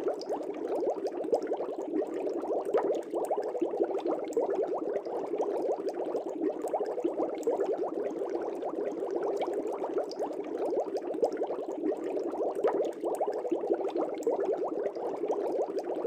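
Air bubbling steadily through aquarium water: a dense, unbroken stream of small pops and gurgles.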